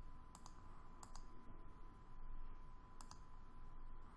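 Computer mouse clicks: three quick double-clicks spread over the few seconds, selecting a file in an open-file dialog.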